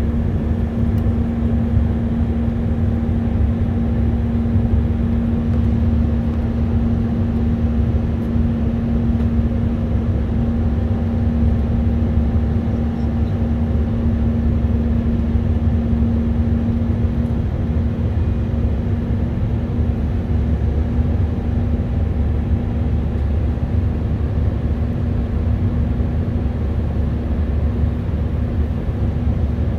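Steady cabin noise of an Airbus A319-132 in flight, heard beside the wing: the constant drone of its IAE V2500 turbofan engines and rushing airflow, with a low rumble and a steady hum.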